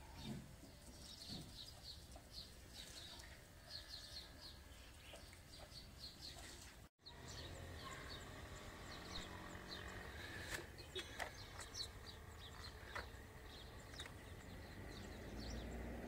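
Faint, busy chirping of small birds: many short high calls repeating in quick clusters. The sound breaks off for a moment about seven seconds in, then carries on with more scattered chirps and a few sharp clicks.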